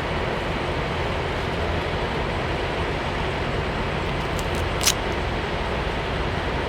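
Steady rumble and noise of a semi truck, with one short sharp click about five seconds in.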